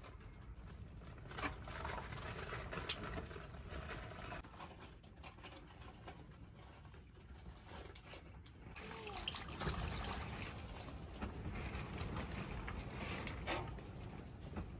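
Hands sloshing and scooping in a pot of buttermilk, lifting out lumps of butter and dropping them into a bowl of water, with small splashes and drips.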